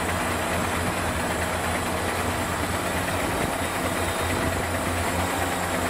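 A MAZ dump truck's diesel engine running steadily at a constant speed while the truck stands with its tipper body raised.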